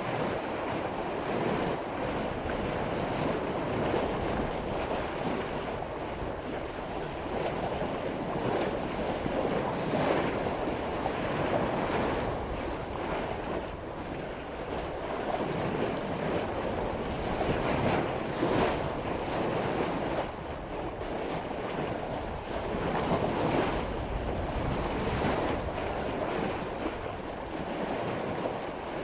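Sea water rushing and splashing along a sailboat's bow as it cuts through waves at about 5 knots, swelling and easing every few seconds with the waves, with wind on the microphone.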